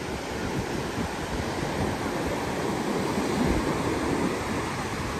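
Sea surf breaking and washing up a sandy shore in a steady rush, with wind buffeting the microphone in low irregular rumbles.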